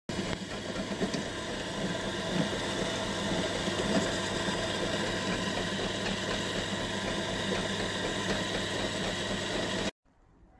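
Electric drill running steadily, its bit boring holes through the base of a metal non-stick pan. The sound cuts off suddenly near the end.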